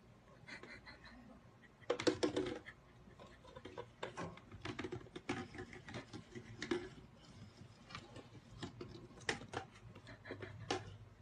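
Irregular light clicks and taps, like tapping or pattering on a hard surface, with a louder cluster about two seconds in.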